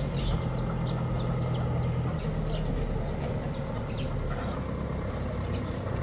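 Small birds chirping many times over a low, steady motor hum that weakens after about two seconds.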